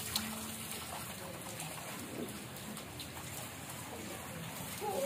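Steady patter and hiss of water falling and splashing on wet concrete ground.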